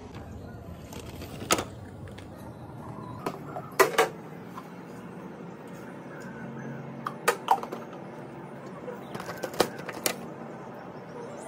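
Kitchen utensils and containers clinking and knocking as they are handled at a counter, in scattered sharp strokes: the loudest pair comes about four seconds in, with more around seven seconds and in a cluster near ten seconds.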